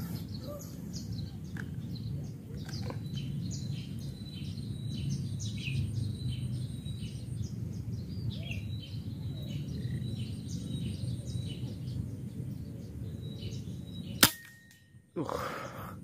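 A single air-rifle shot about fourteen seconds in, a sharp crack and the loudest sound, over a background of birds chirping. The shooter judges it a little low.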